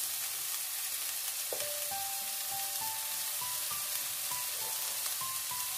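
Shredded vegetables sizzling steadily in a hot wok as cooked rice is spooned in on top. A simple tune of single notes plays faintly from about a second and a half in.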